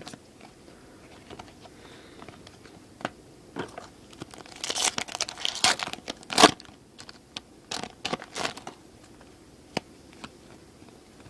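Foil wrapper of a baseball card pack crinkling and tearing as it is opened by hand, in a few short rustling bursts with the sharpest about six and a half seconds in. Light clicks of cards being handled come in between.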